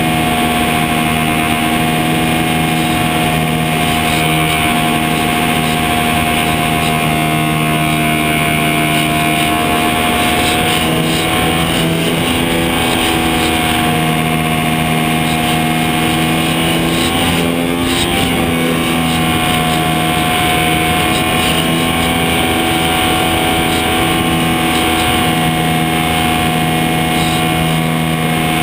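Electric motor and propeller of a HobbyZone Super Cub DSM model airplane in flight, heard from a camera strapped under the fuselage: a steady droning whine over rushing wind. The pitch dips and rises a little around the middle as the throttle changes.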